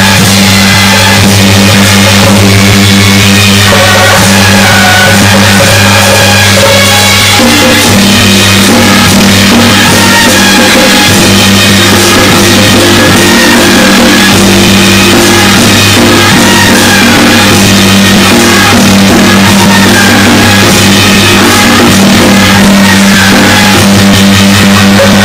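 Loud music with drums over steady held low notes; the low notes shift about seven seconds in.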